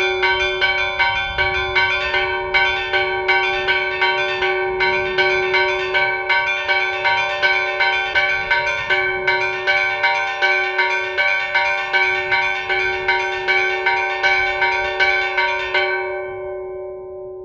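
Three church bells rung by hand, their clappers pulled on ropes in a quick, steady peal of about two and a half strokes a second. The striking stops near the end and the bells hum on as they fade.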